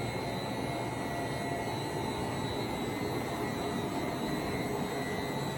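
Poreba TPK110 heavy engine lathe running with its spindle turning forward on the variable frequency drive: a steady machine hum with thin high tones over it, unchanging throughout.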